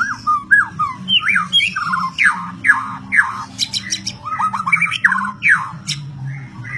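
White-rumped shama (murai batu) singing a fast, varied song of short whistled notes, many sliding downward, mixed with sharp clicking notes.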